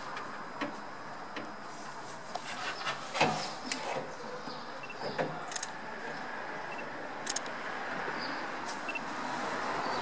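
Scattered clicks and knocks of a car radiator and its plastic fittings being handled in the engine bay, over steady workshop background noise; the loudest knock comes about three seconds in.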